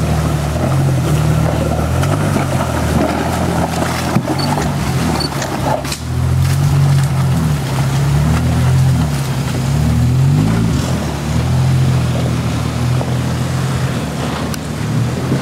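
Off-road 4x4's engine running at low revs under load as it crawls over rocks, its pitch rising and falling with the throttle, with a few knocks.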